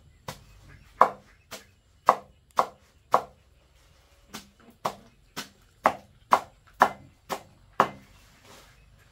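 Knife chopping on a cutting board: fourteen sharp strokes at about two a second, with a one-second pause about a third of the way through.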